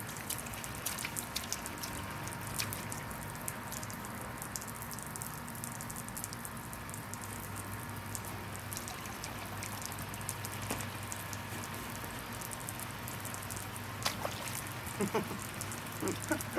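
Water from a splash-mat sprinkler's jets spraying and falling onto the vinyl mat and shallow water, a steady hiss dotted with many small drops and splashes. A brief voice comes near the end.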